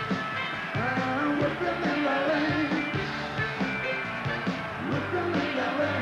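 Rock band playing live: electric guitar and drums with a man singing at the microphone.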